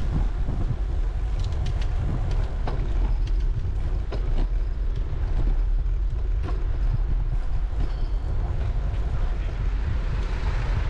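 Wind rushing over the microphone of a camera riding on a moving bicycle: a steady low rumble with scattered clicks and rattles.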